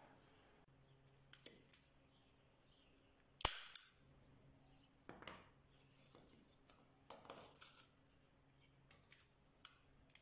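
Hand-operated metal staple gun firing a staple into thin wood strips: one loud sharp snap about a third of the way in. Quieter clicks and knocks come before and after it.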